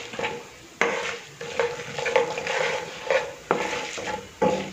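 Wooden spatula stirring and scraping a non-stick pan while mustard seeds, lentils and cumin fry in a little oil, sizzling. Irregular sharp scrapes and taps stand out over the sizzle every second or so.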